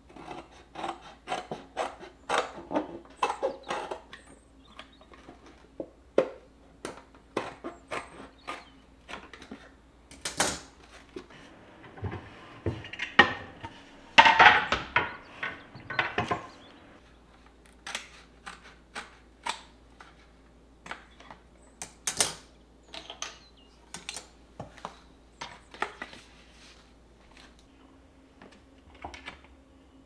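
Close-up kitchen handling sounds: a quick run of clicks and snips as scissors cut through a cardboard carton, then scattered wooden knocks and clacks. A louder rustling scrape comes about halfway through.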